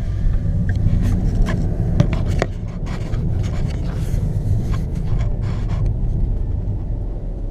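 Steady low rumble of a car's cabin while driving, with several knocks and scrapes in the first couple of seconds as the camera is handled and propped on the dashboard.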